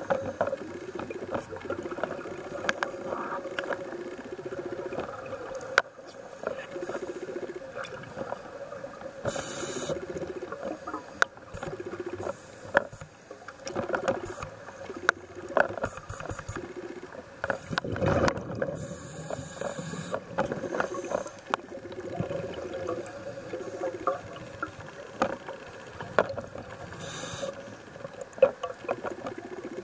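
Underwater sound of a scuba dive heard through a camera housing: a diver's regulator exhales in short rushes of bubbles about every eight to nine seconds, three times, over a steady muffled hum and scattered small clicks.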